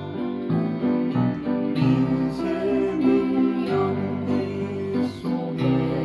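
Upright piano played with both hands: a melody over held chords, the notes ringing on and changing about every second.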